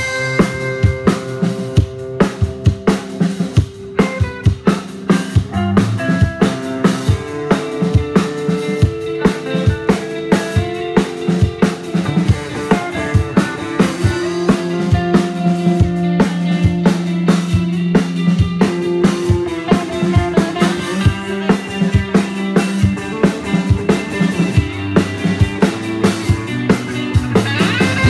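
Live rock band playing: a drum kit keeps a steady beat under electric guitar and bass guitar.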